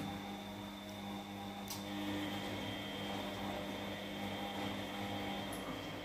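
Front-loading washing machines running mid-cycle, the Siemens in front with its drum turning: a steady motor hum with a low drone. A faint click comes about two seconds in and again near the end.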